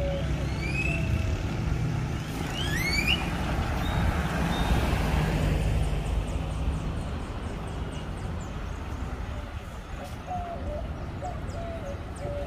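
Street ambience: a steady low rumble of passing traffic, with a few rising whistles about two to three seconds in.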